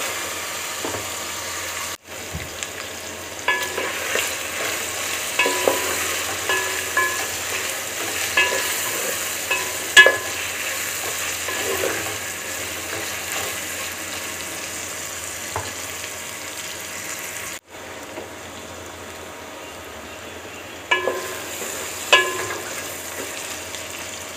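Carrots, capsicum and chicken sizzling in oil in an aluminium pot while a spatula stirs them. The spatula scrapes and knocks against the metal pot now and then, each knock ringing briefly. The sound cuts out for an instant twice.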